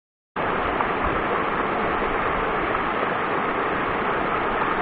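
Shallow mountain stream rushing over rocks in a riffle: a steady, even rush of water that starts a moment in after a brief silence.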